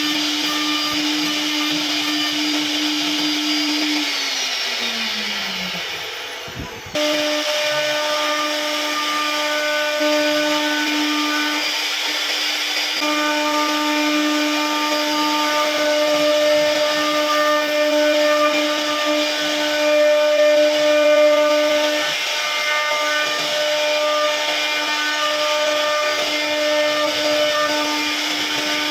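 CNC router spindle running at high speed while carving wood, a steady high whine over the hiss of the bit cutting. About four seconds in the whine falls in pitch and fades, then comes back abruptly and stays steady.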